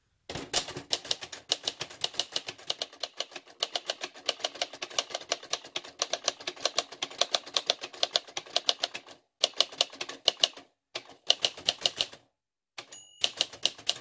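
Typing on a 1966 Singer Professional T-62 manual typewriter, a rebadged Royal Safari: fast runs of keystrokes, the typebars clacking against the platen, with short pauses from about nine seconds on. The bell dings once near the end, then the keystrokes go on.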